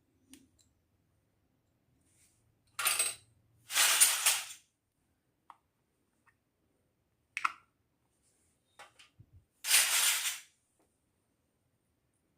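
Small toy kitchen pieces being handled and set down: three brief clattering rattles, the last near the end, with a few light clicks between them.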